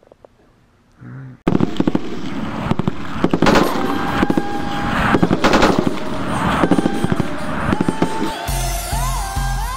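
Outro music starting abruptly after a second and a half of quiet room tone: a dense crackling, firework-like noise with held tones, then near the end a steady deep beat with rising synth tones.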